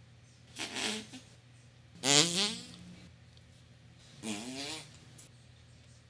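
Three farts about two seconds apart. The first is short and mostly hiss, and the second and third buzz with a clear pitch, the second rising as it goes.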